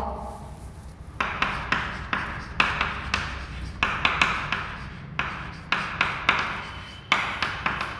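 Chalk writing on a chalkboard: an irregular run of short scratching strokes and taps as letters are written.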